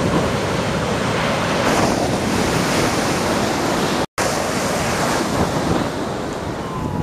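Ocean surf breaking on the beach and washing up the sand, a steady rush of white water, with wind buffeting the microphone. The sound cuts out for an instant about four seconds in.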